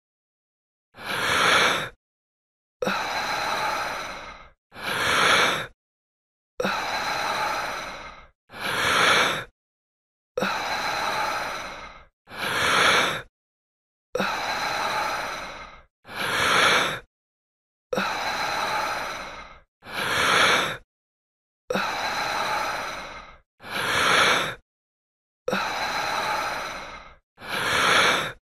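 A person breathing slowly and deeply, or sighing: a short breath that swells and cuts off, then a longer breath that fades away. The pair repeats evenly about seven times, with dead silence between breaths.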